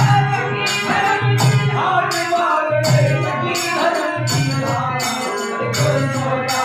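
Devotional bhajan: a dholak drum beats a steady rhythm, about three strokes every two seconds, with jingling hand percussion on each beat. Harmonium plays steady chords under voices singing a wavering melody.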